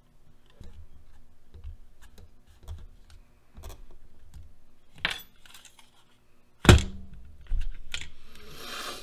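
Hard plastic RC truck parts being handled and fitted together by hand: scattered light clicks and knocks, with a louder knock about two-thirds of the way in and a brief scraping noise near the end.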